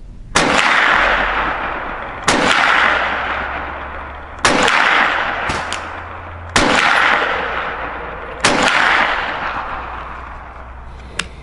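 Five shots from a Ruger PC Carbine 9mm, about two seconds apart, each followed by a long fading echo.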